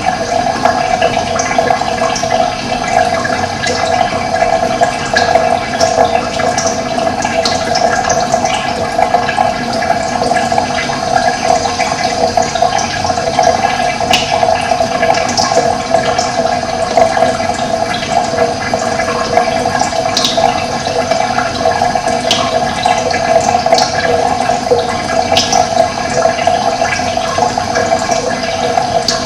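Running water flowing steadily, with short, faint high bird chirps scattered throughout.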